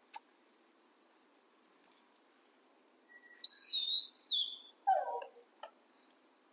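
A young macaque gives a high, wavering squeal a little over a second long about halfway through, followed at once by a shorter, lower call that falls in pitch.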